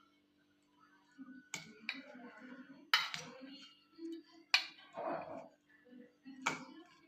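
Kitchen utensil tapping and scraping: about five sharp clicks, each followed by a brief scraping rustle, over a faint steady hum.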